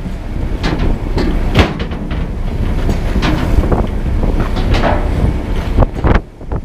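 Small fishing boat working in a rough sea: waves splashing against the hull in irregular surges over a steady low rumble, with wind buffeting the microphone.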